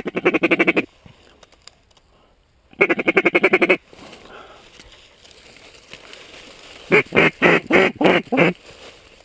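Mallard-type duck quacking: a fast run of chattering quacks at the start and again about three seconds in, then about seven separate, slower quacks near the end.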